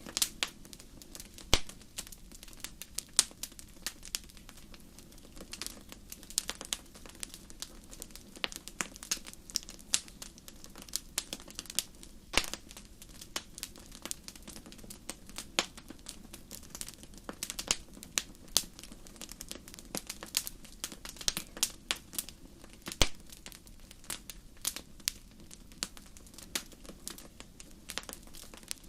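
Wood fire crackling in a fireplace: irregular sharp pops and snaps, some louder than others, over a low steady rumble of the flames.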